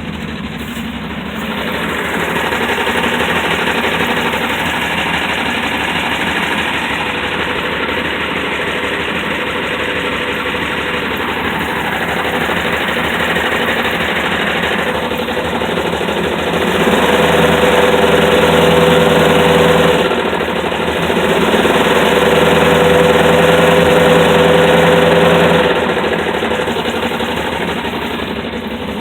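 Dodge Dart engine running with a knock. It is revved up and held twice in the second half, then drops back.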